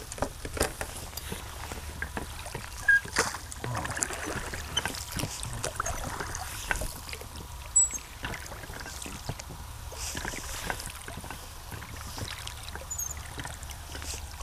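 Water lapping and slapping against a small boat's hull, with scattered irregular knocks and clicks over a steady low rumble.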